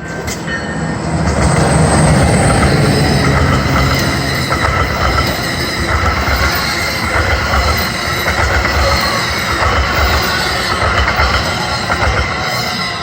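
Commuter train passing close by, a loud rumble of wheels on rail with high-pitched wheel squeal over it; it swells about a second in, holds steady, and begins to fade near the end.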